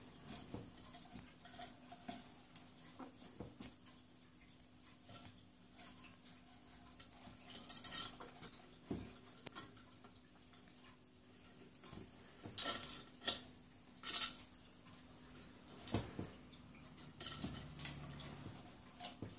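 Faint scattered clicks, knocks and scrapes of a small pet moving about inside a wooden nest box, with a few louder clatters in the second half.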